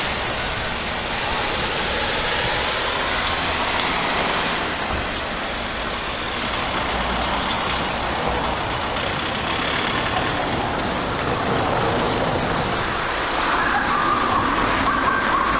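Road traffic going by on a street: a steady rush of passing vehicles, with a higher steady tone joining in near the end.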